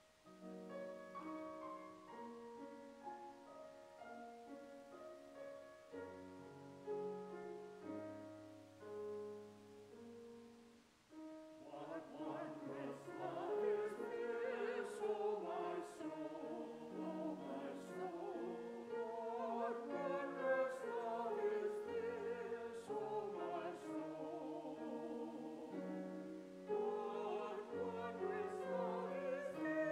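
Keyboard accompaniment playing held chords, then about a third of the way in singing with vibrato joins over it and carries on louder to the end.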